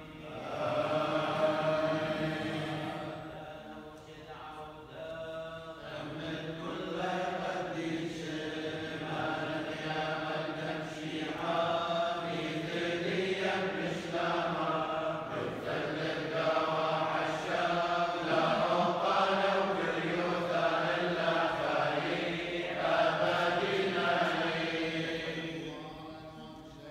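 A group of Chaldean clergy chanting funeral prayers, a sung liturgical chant in several men's voices. It breaks briefly about four seconds in, then runs on without a break until it drops away near the end.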